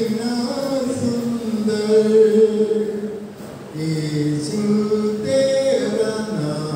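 A man singing a hymn into a microphone, in long held notes.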